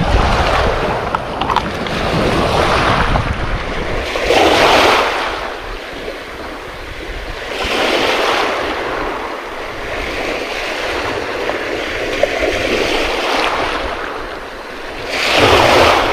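Small sea waves breaking and washing up a pebble beach, swelling and fading every few seconds, with wind rumbling on the microphone.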